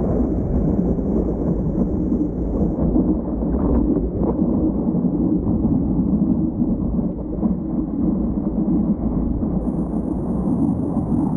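Steady low rumble of wind buffeting the microphone over the roar of heavy surf, with no break.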